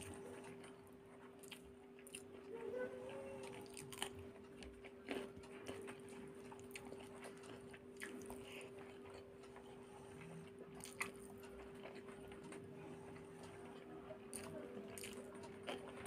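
Faint close-miked eating sounds: chewing and wet mouth noises, and fingers mixing rice with egg curry on a paper plate. Scattered small clicks run over a steady low hum.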